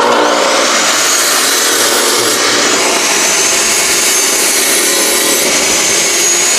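High-speed cutoff saw fitted with a carbide-tipped wood blade, switched on with a high whine rising over the first second, then running loud and steady as it cuts through a dry acacia log.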